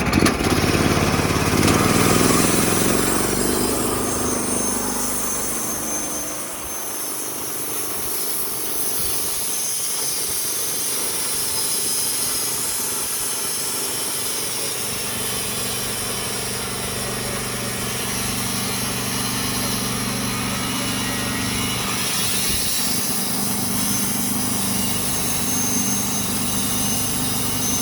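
Portable Hudson bandsaw sawmill running, its engine under steady load as the blade cuts lengthwise through a Norway spruce log. Loudest in the first few seconds, then a steady engine drone with a high hiss from the blade.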